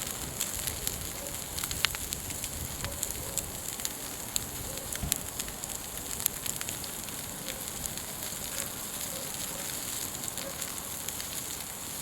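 Firewood fire crackling with irregular sharp pops, over a steady hiss of meat sizzling on a grill above the fire.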